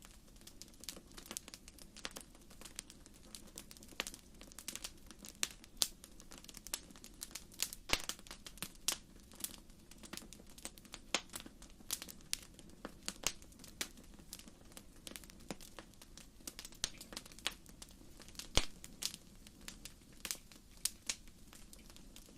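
Lava flow crackling: irregular sharp cracks and clicks, several a second, over a faint low rumble.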